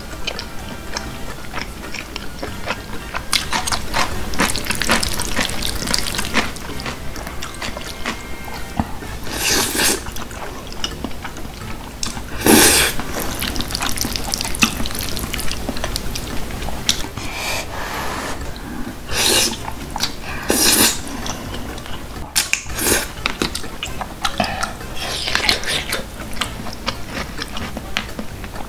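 Close-up eating sounds of thick, saucy jjajangmyeon: noodles in sticky black-bean sauce slurped and chewed, with chopsticks mixing them in the plastic tray. Several short, loud wet slurps stand out, one every few seconds, over quieter background music.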